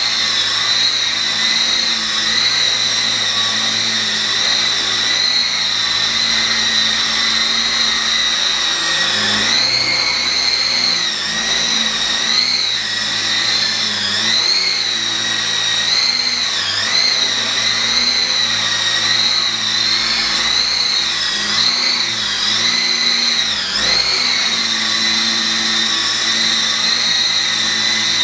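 E-sky Lama coaxial RC helicopter's small electric motors and rotors whining steadily; from about ten seconds in, the pitch repeatedly wavers up and down, then settles again near the end.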